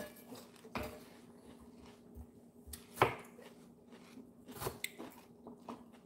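Chef's knife cutting watermelon into cubes, the blade knocking lightly on a plastic cutting board about five times at uneven intervals, the loudest about three seconds in.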